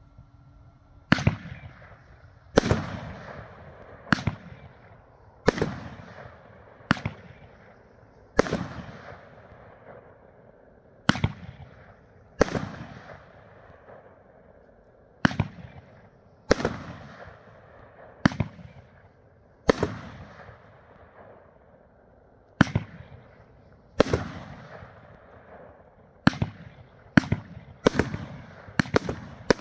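A 23-shot consumer firework cake ('Mamba Mentality' by Happy Family Fireworks) firing shot after shot, about nineteen sharp bangs, roughly one every second and a half. The shots come faster near the end. Each bang dies away over about a second.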